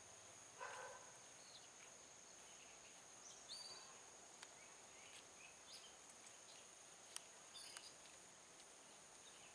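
Quiet outdoor ambience: a steady high-pitched insect drone, with a few faint, short bird chirps scattered through it.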